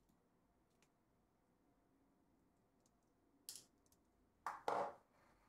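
Handling clatter while a Jupiter-21M lens is being taken apart: a faint tick early on, then a short sharp click about three and a half seconds in and two louder knocks about a second later, as the small screwdriver and the metal lens are handled and set down on the table.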